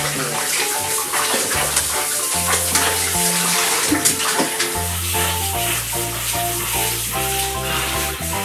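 Handheld shower running and water splashing in a bathtub as dogs are rinsed of shampoo, over background music with held bass notes.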